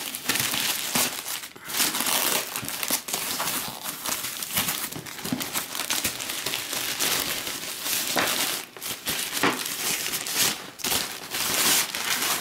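A black plastic mailer bag and white foam packing sheets crinkling and rustling as hands pull them open and lift them away.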